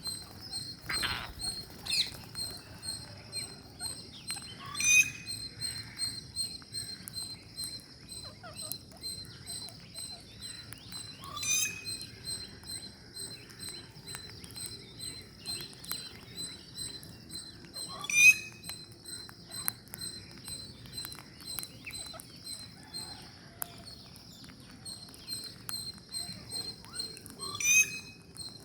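A bird call, a quick sweep up and back down in pitch, repeated four times several seconds apart, over a steady high-pitched ringing tone and small scattered clicks.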